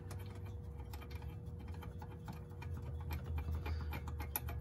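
Ratchet clicking in quick irregular runs as loosened E12 external-Torx bolts are backed out of the driveshaft-to-differential flange, with the clicks coming thicker near the end, over a steady low hum.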